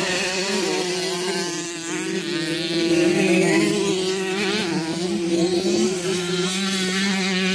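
Several dirt bike engines running at once, their pitches rising and falling as they rev, over a steadier engine note underneath.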